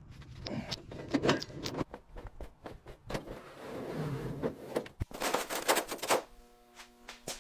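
A series of sharp clicks and knocks, with a short rush of hiss-like noise about five seconds in; near the end, a few steady held tones begin.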